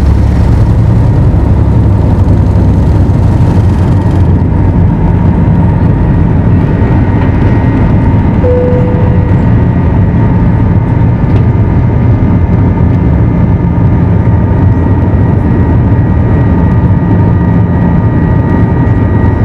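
Inside the cabin of an Airbus A321 during takeoff: the jet engines run loud and steady at takeoff power, with a low hum and a high whine. A rushing hiss and rumble from the wheels on the runway drops away about four seconds in as the plane lifts off. A brief single tone sounds about eight seconds in.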